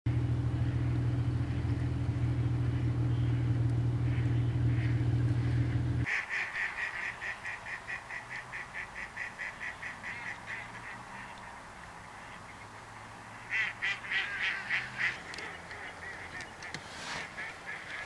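A loud, steady low rumble that cuts off suddenly about six seconds in. Then waterfowl call in rapid runs of about four or five calls a second. The first run fades away over a few seconds, and a louder run comes a few seconds later.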